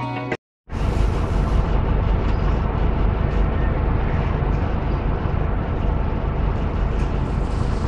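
Motorcycle running at speed with heavy wind and road noise, starting abruptly after a moment's silence about half a second in.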